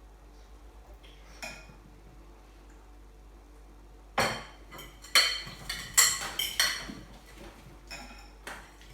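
Cutlery clinking against dishes during a meal: a run of sharp metallic clinks with a short ring, starting about four seconds in, after a quiet stretch.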